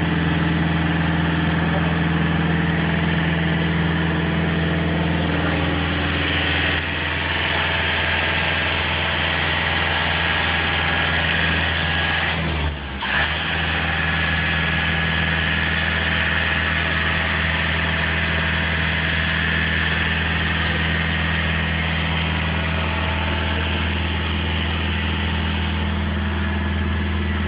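Engine of a mobile elevated work platform running steadily as the platform is raised, with a higher steady whine above it from several seconds in and a brief break about halfway through.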